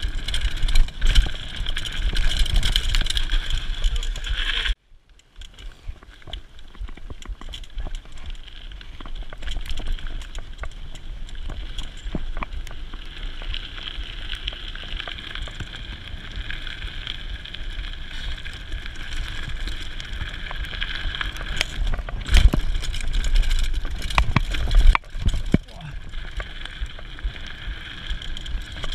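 Mountain bike ridden fast down a dirt trail, heard from a GoPro mounted on the bike: knobby tyres rolling and rattling over the dirt, wind rumble on the microphone and a steady high whir. The sound cuts out abruptly about five seconds in and builds back up. A few sharp knocks from bumps come near the end.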